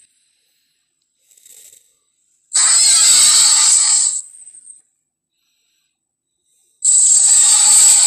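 Cartoon T. rex vocal sound effect, harsh and hiss-heavy, played twice with silence between. A faint short sound comes about a second in. The first loud call comes about two and a half seconds in, lasts under two seconds and trails off. The second starts near the end.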